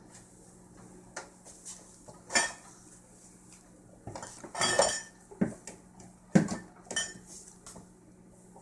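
Containers and shelves in a refrigerator clinking and clattering as a small child climbs on it: scattered sharp knocks, with a longer rattling clatter around the middle.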